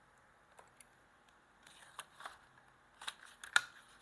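Hot Wheels premium die-cast car's plastic and card packaging being handled and opened: scattered sharp plastic clicks and crackles, the loudest about three and a half seconds in.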